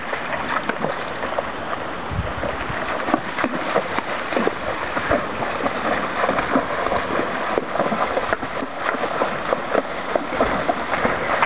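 Shallow rocky river running steadily, with irregular splashing as a horse and a dog wade through the water.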